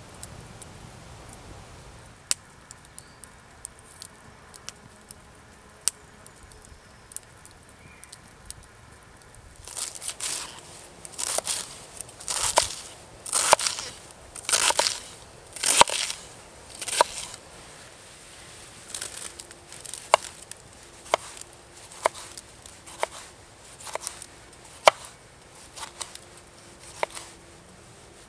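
Kitchen knife chopping a lettuce on a wooden cutting board: crisp crunching cuts, about one a second. Then come sharper, single taps of the blade on the board as a tomato is sliced.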